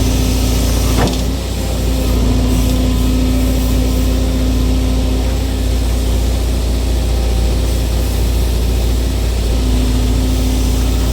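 Excavator's diesel engine running steadily under load, with a held mid-pitched whine over the low engine hum and a single sharp knock about a second in.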